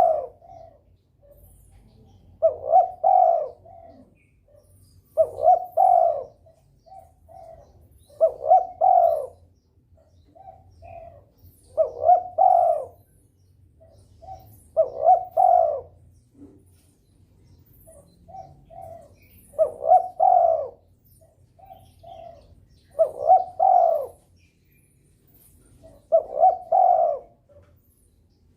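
A derkuku dove in breeding condition, cooing steadily over and over. Each low, rolling coo phrase comes about every three seconds, with short softer coo notes between phrases.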